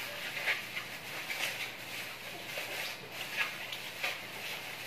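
Clear plastic bag holding chicken pieces in marinade, rustling and crinkling in irregular bursts as it is shaken and its top twisted closed.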